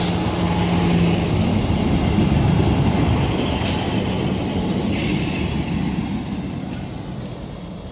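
Diesel multiple-unit passenger train running past along the platform, with engine hum and wheel noise on the rails and a couple of sharp clicks. The sound fades as the rear cab passes, about six seconds in.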